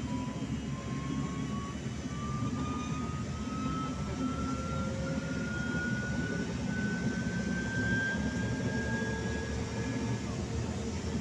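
Trolleybus in motion heard from inside the cabin: a low rumble of the ride under the whine of the electric traction motor, which rises slowly in pitch as the trolleybus picks up speed and levels off about three-quarters of the way through.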